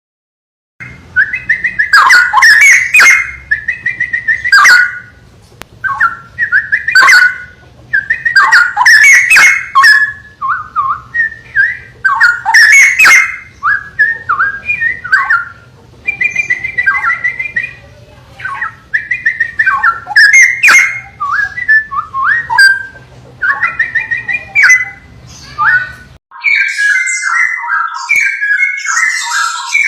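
Straw-headed bulbul (cucak rowo) singing: loud, rich whistled phrases that jump up and down in pitch, delivered in bursts of a few seconds with short pauses between. About four seconds before the end the song switches to a denser, unbroken run of notes.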